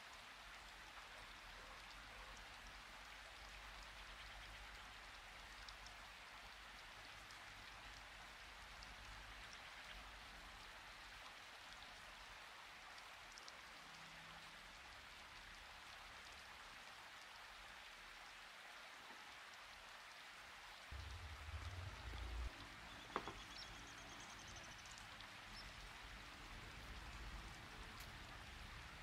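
Near silence: a faint, steady hiss, with a few dull low bumps about two-thirds of the way in and a single sharp click just after.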